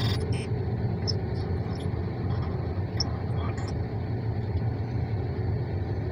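Steady low rumble inside a car, with a few faint clicks, the most distinct right at the start.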